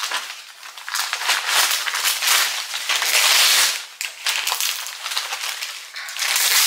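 White packing paper crinkling and rustling in a run of crackly rustles as it is pulled off a shipped plant. It is loudest about halfway through.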